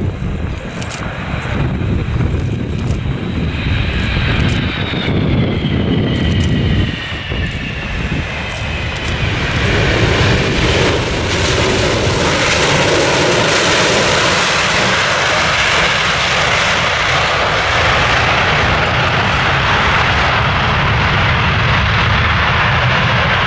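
Boeing 747-400's four turbofan engines during landing: a whine that falls in pitch around touchdown, then a loud, steady rush of engine noise as the jet rolls out along the runway.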